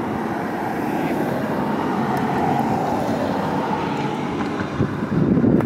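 Steady vehicle rumble, getting rougher and a little louder near the end.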